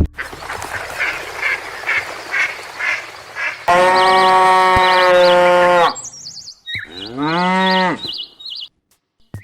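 Cow mooing twice: a long, loud, steady moo a few seconds in, then a shorter one that rises and falls in pitch. Small birds chirp over the moos.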